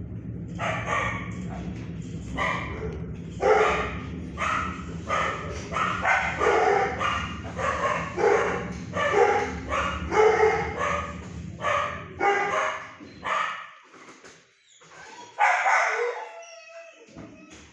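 Dog barking repeatedly in a steady string of short barks, roughly two a second. The barking stops about 13 seconds in, and one longer bark follows near the end.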